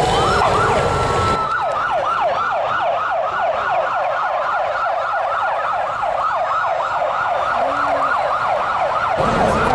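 Police electronic siren in a fast yelp, each cycle sweeping down in pitch, about three to four times a second. A broad low rumble sits under it for the first second and a half.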